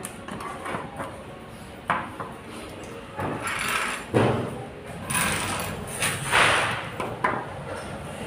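Lamp parts and test leads being handled on a tabletop: a few knocks, the loudest about four seconds in, and several short scraping, rustling sounds.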